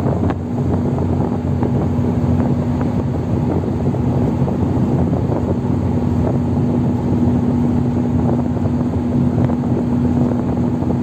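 Diesel engines of a landing-craft cargo vessel running steadily under way: a low rumble with a constant hum.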